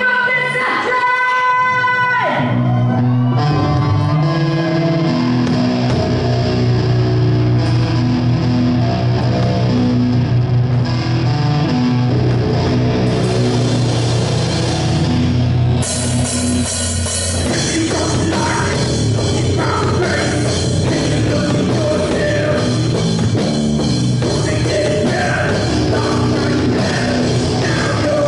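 Live rock band playing: electric bass, electric guitar and drum kit, with singing. The band comes in fuller and harder about sixteen seconds in.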